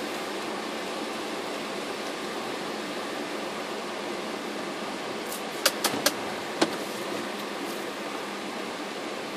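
Steady hiss of rain and wet-road noise inside a moving car. A little past halfway, four short sharp taps come in quick succession.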